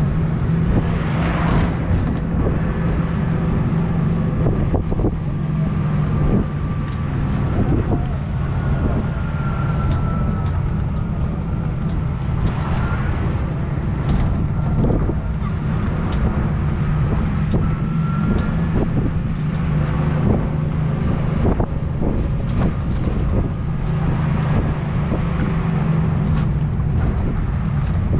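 Steady low engine drone of a moving vehicle, with scattered light clicks and rattles over it.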